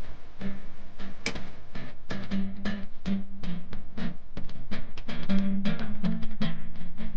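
Instrumental background music with a steady drum-kit beat over a bass line, growing a little louder about five seconds in.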